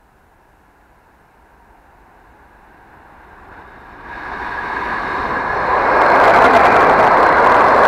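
Russian electric commuter train (elektrichka) approaching at speed and passing close by without stopping: the rush of wheels on rails grows steadily louder and reaches full loudness about six seconds in as the cars run past.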